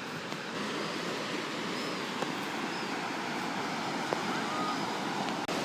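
Steady wash of gentle surf, the small waves of a flat sea breaking on the beach.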